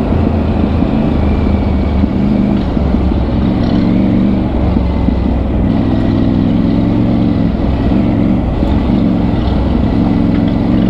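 Triumph Tiger 900 Rally's three-cylinder engine running on an off-road trail, its note swelling and easing every second or two as the throttle opens and closes.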